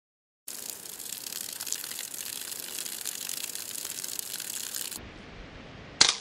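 A steady hiss of water spraying onto a plastic ViewCatcher lying in grass, starting about half a second in and cutting off at about five seconds. Near the end comes a single sharp clack as the plastic tool is dropped onto a stone slab.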